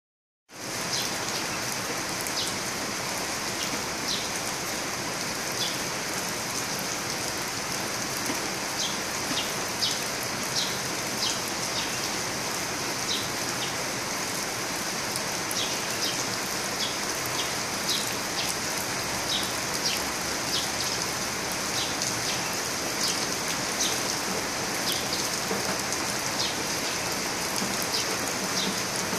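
Steady rain falling on garden plants and upturned clay flowerpots, starting about half a second in: an even hiss with frequent sharp taps of individual drops.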